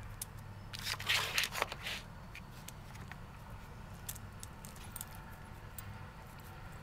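Dog nosing and licking at a wooden treat puzzle, with a burst of rattling and scraping about a second in, then scattered light clicks.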